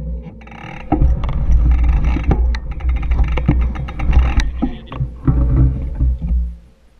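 Mountain bike riding over a loose gravel dirt trail: wind buffeting the camera's microphone as a heavy rumble, with tyres crunching on stones and the bike rattling and knocking over bumps. It dies down sharply near the end.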